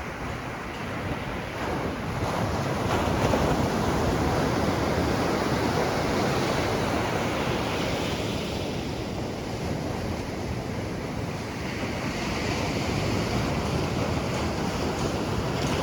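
Ocean surf: waves breaking and washing up the beach in a continuous rush, swelling about two seconds in and again near the end, with wind buffeting the microphone.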